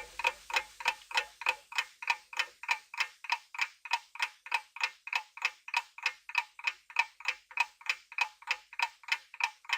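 Clock-ticking sound effect used as a quiz countdown timer, a steady run of sharp ticks at about three a second that starts and stops abruptly.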